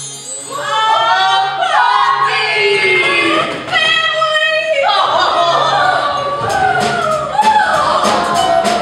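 Voices singing over backing music, with pitches that slide up and down. Near the end, a repeated high jingling joins in.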